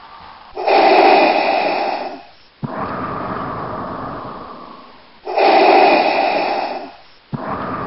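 Loud, slow, heavy human breathing: two full breaths, each a loud rush of about a second and a half followed by a longer, softer one that fades away.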